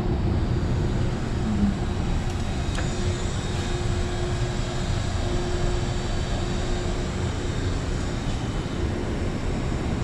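Steady low roar of a Nortec gas-fired steam humidifier running with its burners lit, with a faint steady hum that fades out about seven seconds in.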